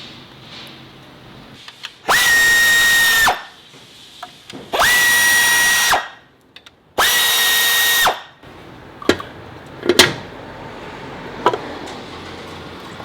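A power tool's motor, such as a cordless drill-driver or electric ratchet, running in three loud spurts of about a second each, its high whine spinning up and winding down each time, as fasteners are run out. A few sharp metallic clinks follow near the end.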